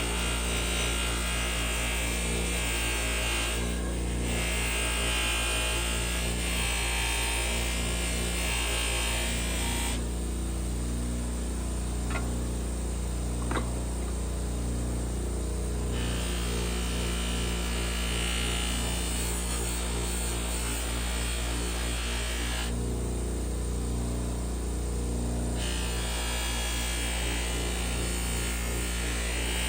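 A small electric power tool running steadily, with a hiss of abrasive work on metal that comes and goes as it is pressed to the knife blade and lifted off, typical of cleaning up a blade.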